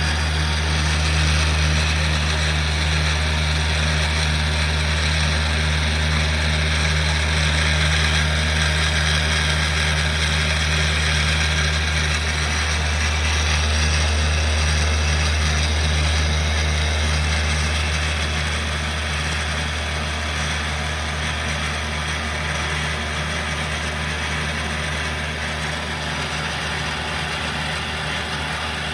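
CNC machine running a free-running random-orbit polishing head with a foam pad on aluminum: a steady low machine hum under an even whirring hiss, easing off slightly about two-thirds of the way through.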